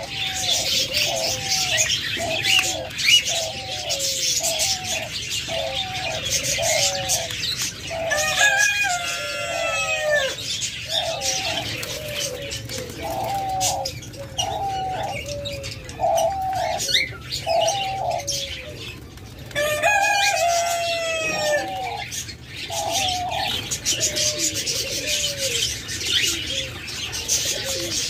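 Diamond doves cooing in long runs of short repeated notes, about two a second at first. Under them runs the dense chirping of many small cage birds, with a few louder falling chirps about a third and two thirds of the way through.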